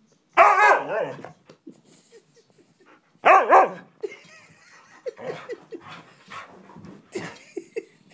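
Husky vocalising in protest at not being played with. Two loud, wavering howl-barks come about half a second in and about three seconds in, followed by a run of shorter, quieter yips and grumbles.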